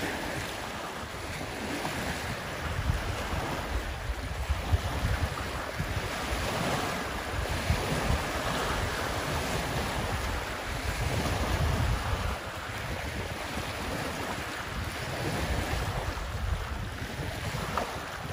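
Wind buffeting the microphone in uneven gusts over small lake waves lapping and washing onto the shore.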